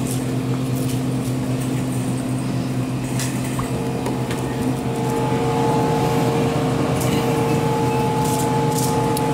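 Steady electric hum of refrigerated glass-door drink coolers. A higher steady tone joins about four seconds in, and there are a few faint clicks.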